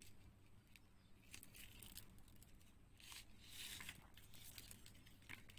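Near silence with faint scattered rustles and light clicks of beads and beading thread being handled.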